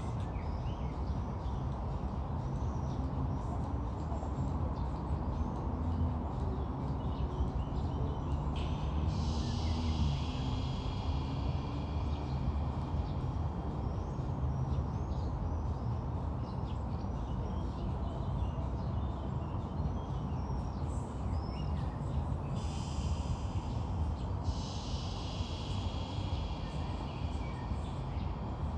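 Outdoor nature ambience: a steady low rumble of wind on the microphone under small, repeated bird chirps. About nine seconds in, a high, steady buzzing trill starts, lasts a few seconds and stops, then comes back twice near the end.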